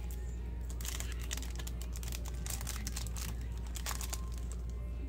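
Foil trading-card booster pack wrapper crinkling and tearing as it is opened, in quick irregular crackles, over a steady low hum.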